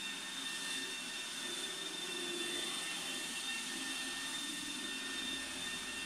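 iRobot Roomba 866 robot vacuum cleaning a hard laminate floor: a steady hiss of its suction fan and brushes, with a high-pitched whine running through it.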